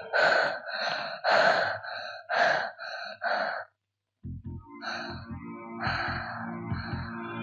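A frightened child gasping in quick, harsh breaths, about six in a row, which stop after about three and a half seconds. A low, sustained film-score chord comes in after a brief gap.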